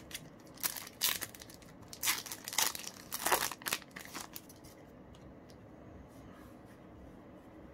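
A Yu-Gi-Oh! booster pack's foil wrapper being torn open and crinkled as the cards are pulled out, in several short bursts over the first four seconds or so, then only faint handling.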